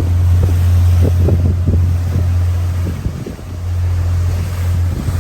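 Steady low drone of a trawler's diesel engines running under way, with wind buffeting the microphone in gusts.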